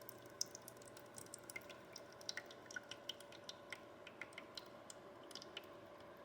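Faint, irregular light clicks and ticks, a few a second at most, over a steady low hum.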